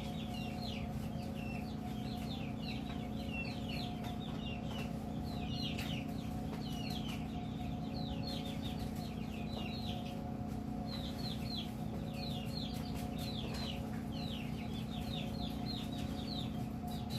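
Chickens calling continuously, a dense run of short high chirps and clucks, over a steady low electrical hum.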